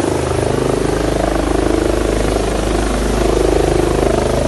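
Airbus H145 twin-turbine helicopter running loud and close, its rotor beating rapidly and steadily over the rushing noise of its downwash blowing dust.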